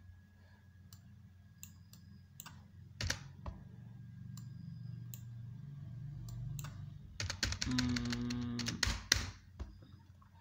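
Typing on a computer keyboard: scattered single keystrokes, then a quick flurry of keys about three-quarters of the way through, over a low steady hum.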